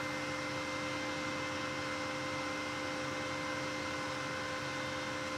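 Steady electrical hum and fan whir from an idling Vevor 210A TIG welder, holding a few even tones with no change.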